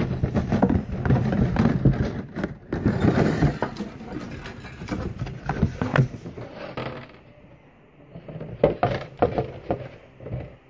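Plastic model-kit parts and their plastic bags being handled and shuffled about on a bench: rustling plastic with many light clicks and clatters. It goes quieter for a moment about seven seconds in, then the clicking picks up again.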